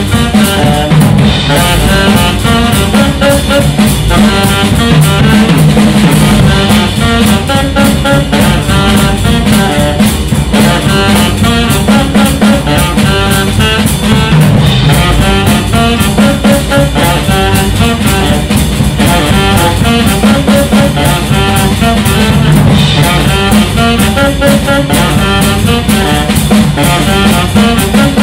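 Live jazz trio playing: saxophone lines over walking double bass and a busy drum kit with rimshots.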